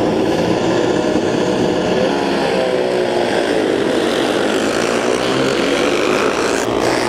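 A pack of vintage 250–400cc racing motorcycles (Harley-Davidson Sprints, a Ducati and a BSA) accelerating hard away from the start, several engines running at once, with pitches rising as they rev up.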